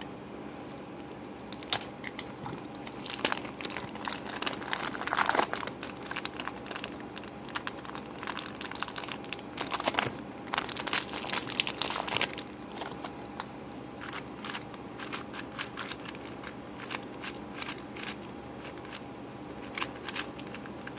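Packaging being handled and opened: crinkling and rustling of wrappers, with scattered clicks and taps that come in busy spells and pauses.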